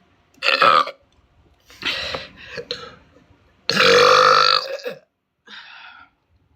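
A series of loud burps, about five in all. The loudest is a long, deep burp of about a second, some four seconds in, and a fainter one comes near the end.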